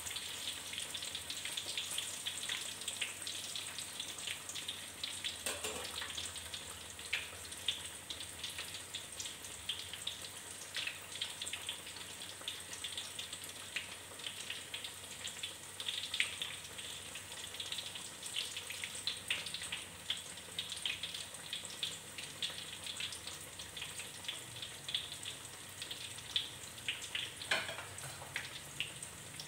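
Corn fritters deep-frying in hot oil in a metal wok: a steady sizzle with scattered crackles and pops.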